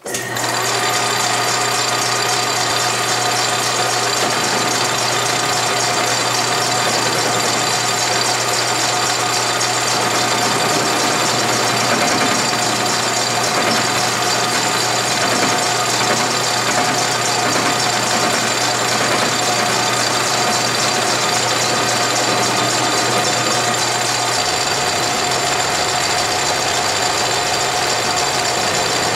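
A 10-inch South Bend heavy lathe starts suddenly and runs steadily with a whine of gears and motor, while a tool faces the end of heavy-wall steel tubing held in a steady rest. A low hum drops away near the end.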